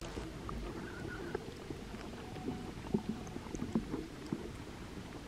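Wind buffeting the microphone at a snowy mountain summit: a low, uneven rumble with a few faint clicks.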